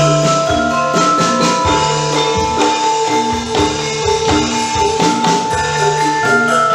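Instrumental background music with a steady drum beat and a melody of held and repeated notes.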